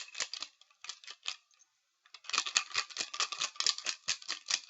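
Staplers being shaken and muddled together in a container, knocking against each other. A few separate knocks come first, then about two seconds of fast, dense clattering.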